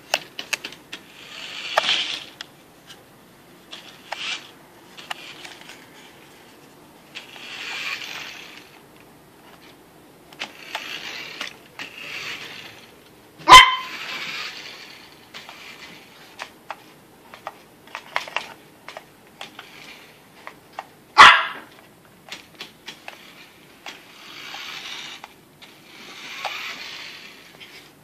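Yorkshire terrier barking at a remote-control toy car: two sharp, loud barks about eight seconds apart, with light clicks and short stretches of hissing sound in between.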